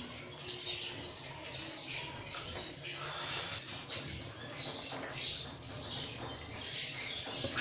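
A pot of rice and water simmering on a gas stove, bubbling with a steady crackle of small irregular pops.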